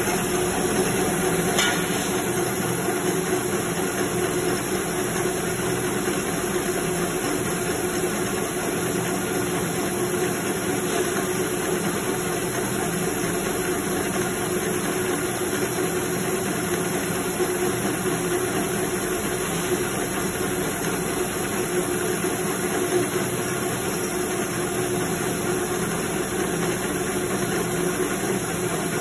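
Heidelberg folding machine running steadily: a constant machine hum with a held tone and a hiss above it, and one small click about a second and a half in.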